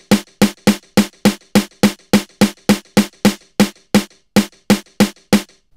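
A quick, steady run of about twenty equally loud drum-like hits, roughly three and a half a second, as the plain end of a mallet taps a contact-miked surface to train a stroke classifier on a second timbre.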